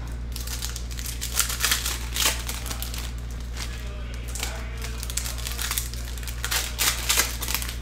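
Foil wrappers of Panini Certified Football card packs crinkling and crackling as the packs are handled. There are two bunches of sharper crackles, about a second and a half in and again near the end.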